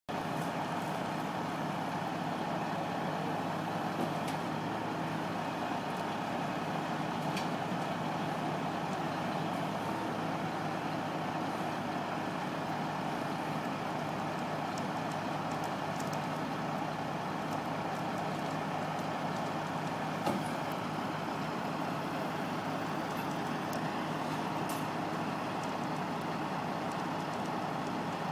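Heavy recovery truck's diesel engine running steadily at a constant speed, with a few faint clicks.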